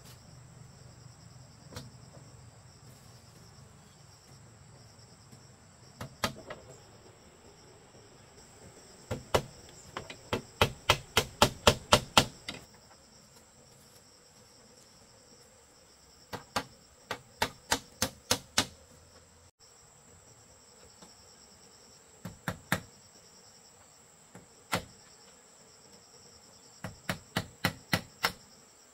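Hammer strikes on bamboo framing, in runs of quick blows about three a second with pauses between. A steady high insect drone carries on behind.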